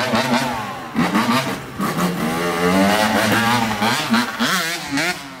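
Suzuki two-stroke dirt bike accelerating away, its engine pitch rising and falling repeatedly as the revs climb and drop. It fades somewhat near the end as it moves off.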